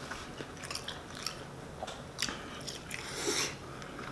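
A person chewing food from a crawfish boil, with small wet mouth clicks and smacks and a louder wet smack about three seconds in.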